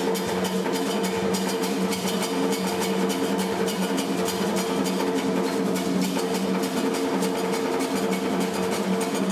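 An ensemble of tall barrel-shaped hand drums playing a fast, driving rhythm of dense, even strokes, over a steady hum.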